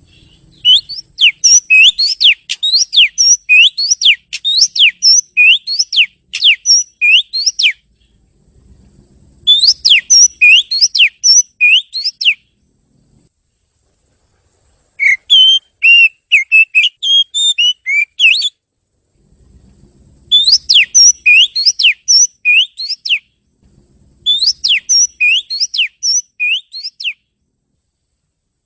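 Oriental magpie-robin (kacer) singing: five bouts of fast, repeated sweeping whistled notes, each bout a few seconds long, with short pauses between them.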